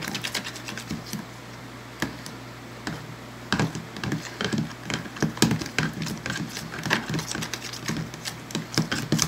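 A plastic spoon stirring thick glue slime in a plastic tub: irregular clicking and tapping as the spoon scrapes and knocks against the tub. The mixture is thickening as the powdered laundry detergent activates it. A steady low hum runs underneath.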